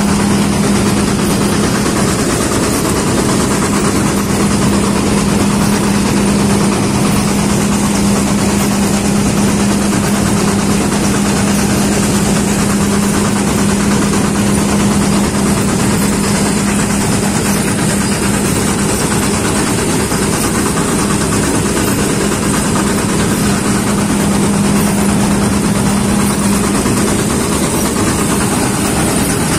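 New Holland grain combine harvester running steadily while its header cuts alfalfa: loud engine and machinery noise with a constant low drone, with no change in pace or pitch.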